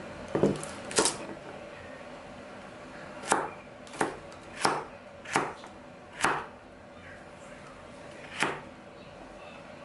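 Kitchen knife chopping carrots on a wooden cutting board: about eight separate cuts at an uneven pace, with a gap of about two seconds before the last one near the end.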